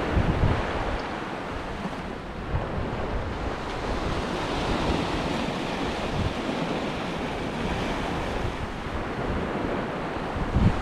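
Sea waves breaking and washing up the shore as the tide comes in, a steady surf, with wind buffeting the microphone in low gusts near the start and again near the end.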